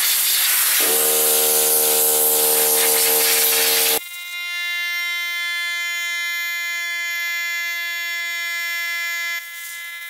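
Compressed-air blow gun on a coiled air hose hissing loudly as it blows sawdust off a laser-cut MDF sheet, with a steady machine hum joining about a second in. The hiss cuts off abruptly about four seconds in, leaving a steady high-pitched buzz.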